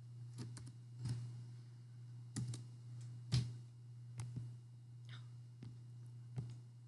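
Faint, scattered clicks of a computer mouse and keyboard, about ten in all at irregular spacing, over a steady low hum.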